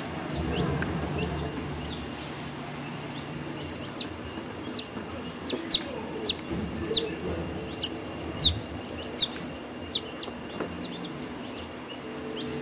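Baby chicks peeping: a string of short, high-pitched peeps, about two a second, from about four to ten seconds in.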